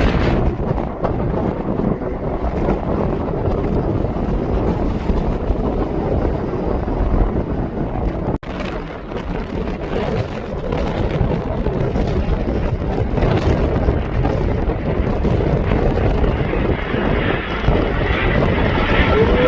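Wind buffeting the microphone over the rumble of an aircraft's engines, with the engine noise growing louder near the end.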